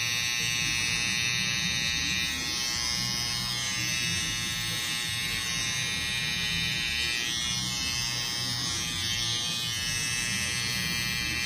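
Cordless T-blade hair trimmer running with a steady buzz, its blade held against a man's lips.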